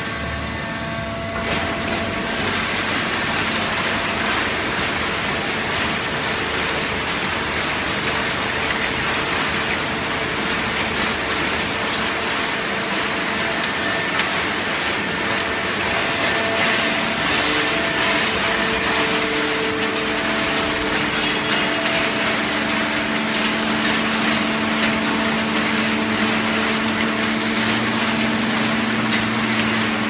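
Fully automatic horizontal hydraulic baling press running: a steady, loud machine noise with a few held humming tones, a low hum growing stronger about two-thirds of the way through.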